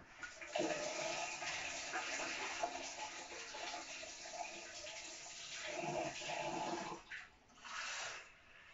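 Kitchen tap running steadily, filling a cup with water. It stops about seven seconds in, then runs again briefly near the end.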